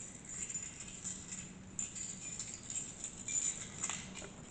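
A bunch of keys jangling in a series of irregular shakes.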